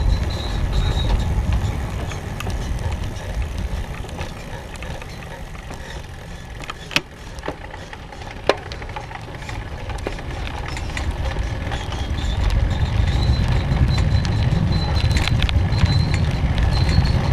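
Wind buffeting the microphone and tyre rumble on asphalt while riding a bike. The rumble eases about halfway through, with two sharp clicks a second and a half apart, then builds again near the end.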